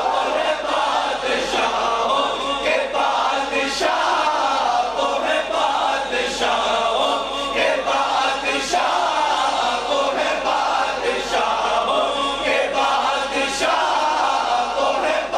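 Male voice singing a naat, an Urdu devotional song in praise of the Prophet, through a microphone with long gliding melodic lines; a crowd of other voices chants along with it.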